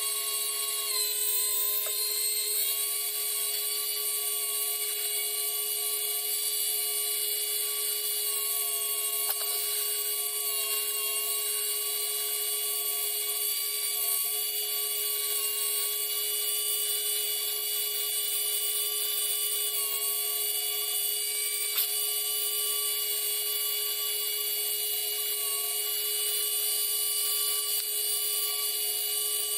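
A Dremel rotary tool running steadily with a high whine while drilling window holes in a model's hull, its pitch dipping briefly a few times as the bit bites.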